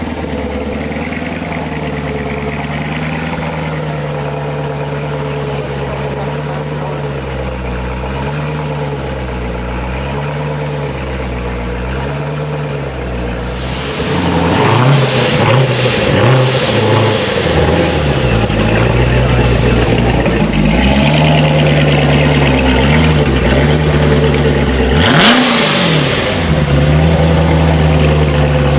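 Chevrolet Corvette C7's V8 idling with a slowly wavering note, then, about halfway through, getting louder as it is revved in repeated blips. The highest and loudest rev comes near the end.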